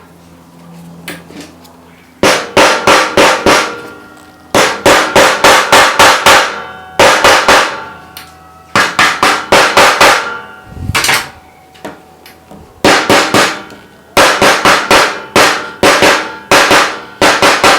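Hammer striking metal in quick runs of ringing blows, about five a second, with short pauses between the runs.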